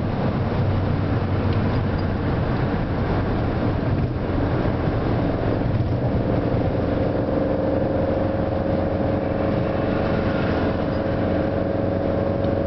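Car engine drone with road and wind noise, heard inside the cabin while cruising at highway speed. It is steady throughout, and a hum in the engine note grows a little stronger and rises slightly about halfway through.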